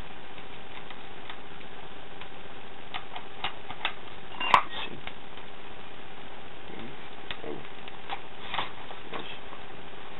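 Scattered small metal clicks and taps of Erector-set parts being handled while a screw is undone, with one sharper click about four and a half seconds in.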